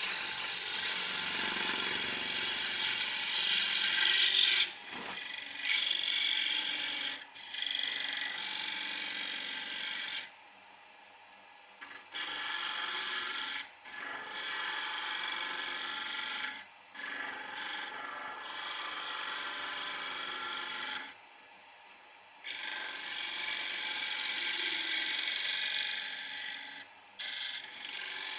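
Hand-held homemade turning tool cutting into wood spinning on a lathe: a scraping, shaving hiss in passes of several seconds, broken by short pauses between cuts.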